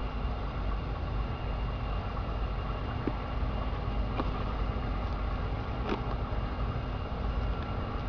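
Machine running steadily with a constant low hum and a faint high whine. A few light clicks come about three, four and six seconds in.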